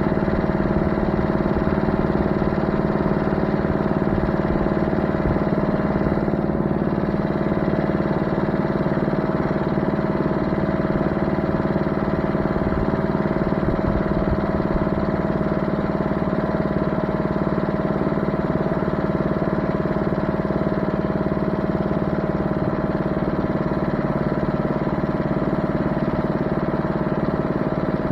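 An engine running steadily at one constant speed, with no change in load.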